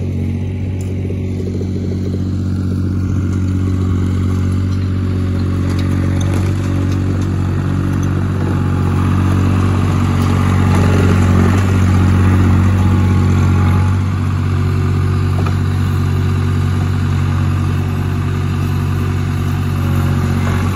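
Vermeer CTX100 tracked mini skid steer running as it drives over the dirt, its engine getting louder in the middle as it works close by, then easing off.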